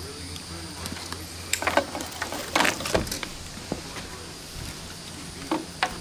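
Handling noise: scattered clicks, rattles and scrapes of a landing net and a hook-removal tool as a hook is worked out of a caught turtle's mouth, in three short clusters. A steady high chirring of insects runs underneath.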